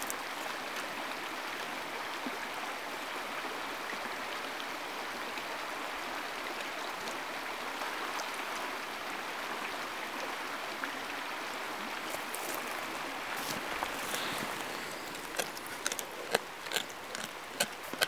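Steady rush of running creek water, and near the end a dog crunching on a raw kokanee salmon carcass: sharp, irregular crunches of bone, two or three a second, louder than the water.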